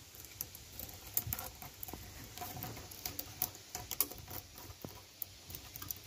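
A cat scratching its claws on a weathered wooden plank: a quick, irregular run of small scratching clicks.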